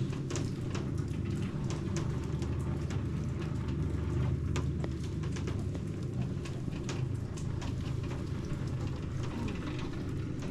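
Steady low hum of a lift carrying people down inside a volcano's crater, with scattered sharp ticks throughout.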